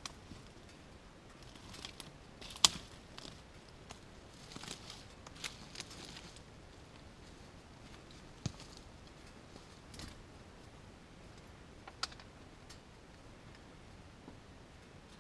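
Faint, scattered clicks and crackles in dry twigs and leaf litter over a soft steady hiss, with one sharp snap about two and a half seconds in and a crackly stretch around five seconds.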